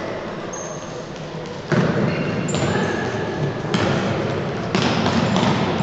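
Indoor futsal play on a wooden sports-hall floor: the ball being kicked and players' feet running, in a reverberant hall with faint shouts. Sharp kicks stand out near two seconds in and twice more later.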